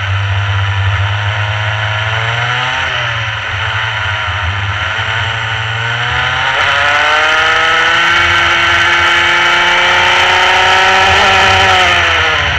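Rotax Mini Max kart's two-stroke single-cylinder engine running on track: the revs drop for the first few seconds, then climb steadily for about seven seconds before falling off again near the end.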